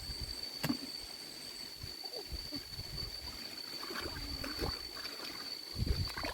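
Water sloshing with soft splashes and knocks, under a steady high-pitched whine.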